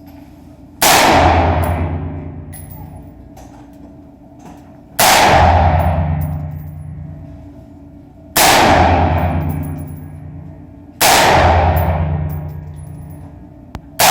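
AR-15 rifle fired in slow single shots, four about three to four seconds apart and a fifth right at the end, each a sharp crack followed by a long ringing decay.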